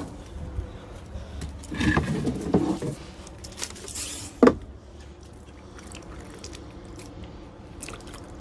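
Handling noises from objects being picked up and moved: a patch of rustling and clatter about two seconds in, then a single sharp knock about four and a half seconds in, with scattered small clicks.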